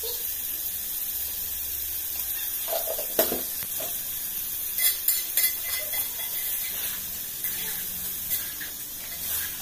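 Food sizzling steadily in a metal pot on a gas stove, with a few knocks and clinks of a plastic container and spoon about three and five seconds in as spice is shaken in and the pot is stirred.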